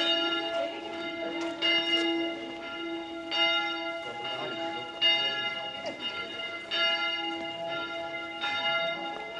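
Church bells ringing, several bells at once: a fresh strike about every second and a half to two seconds rings out and fades, over a deeper bell that hums without a break.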